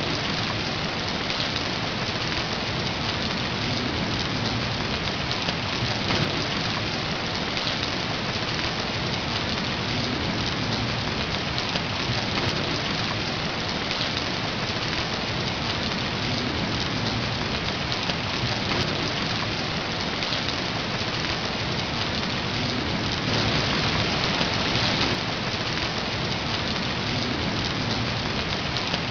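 Steady rain falling, an even wash of noise with no breaks, swelling slightly about four-fifths of the way through.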